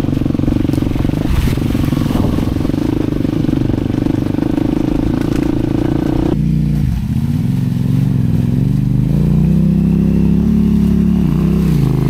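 Dirt bike engine running at a steady, even pitch while riding. About six seconds in, the sound cuts abruptly to a lower engine note that rises and falls as the throttle is opened and closed.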